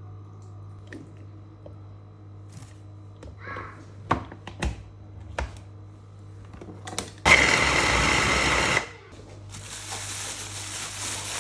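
Household items knocked and clicked about during kitchen cleaning over a steady low hum. About seven seconds in comes a loud hissing rush lasting a second and a half, then a softer steady rush.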